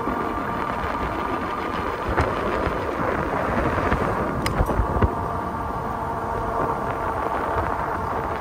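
Wind buffeting the microphone and tyre rumble from an ebike riding on pavement, with a faint steady whine underneath. A couple of short knocks come about halfway through.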